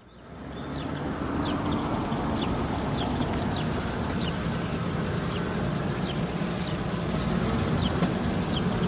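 Cartoon dump trucks' engines running with a steady low rumble that swells in over the first second, with birds chirping over it in short high tweets about twice a second.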